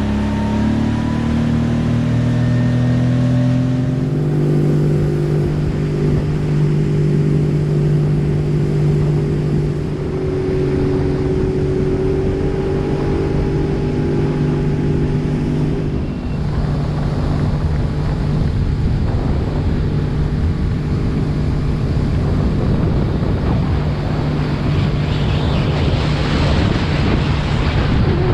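Boat motor running under way, its pitch rising over the first few seconds and then holding steady, with water and wind rushing under it. The rushing grows louder near the end.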